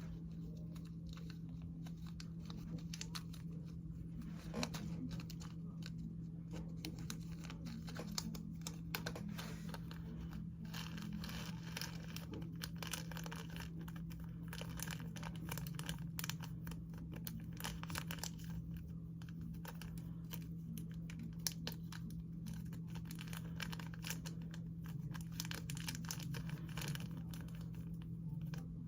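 Crinkling, tearing and small clicks from a slime container and its plastic packaging being handled and opened, over a steady low electrical hum.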